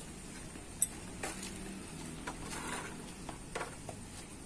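Hand tools and metal engine parts clinking and tapping during disassembly of a two-stroke auto rickshaw engine: a sharp clink about a second in, then scattered lighter taps and a brief scrape.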